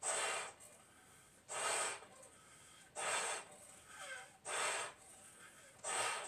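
A person inflating two clear Bobo balloons by mouth through a shared connector, breathing in a steady rhythm: a short, loud rush of breath about every one and a half seconds, five times, with quieter blowing between.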